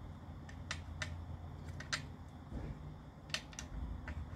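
Light, sharp metallic clicks and taps at irregular intervals as a TPMS tire-pressure sensor's retaining nut is worked off and the sensor is freed from the wheel rim, over a faint steady low hum.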